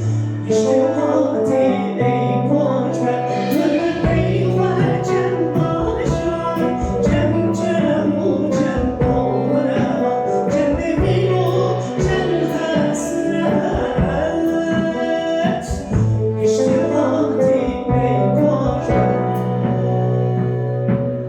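A world-music band playing live: a woman singing over guitar, violin, clarinet and a drum kit with frequent cymbal strikes, above a held bass line.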